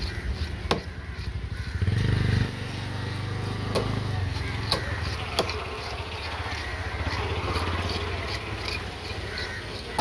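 A small engine running, loudest for about two seconds near the start and coming back briefly later. Over it, a few sharp knocks of a knife chopping into a large fish's head.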